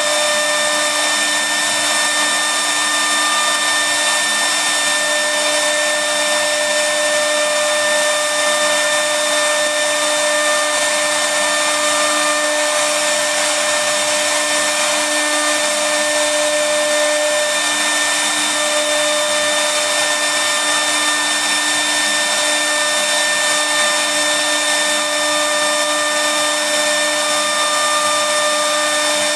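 CNC router spindle cutting a relief carving into solid wood: a steady, high-pitched motor whine of several held tones over the hiss of the cutter, at an even level.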